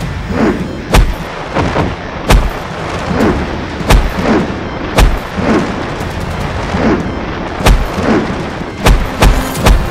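Added fight sound effects: a string of sharp impact hits and blasts, roughly one a second, each trailed by a swoosh falling in pitch, with three hits close together near the end.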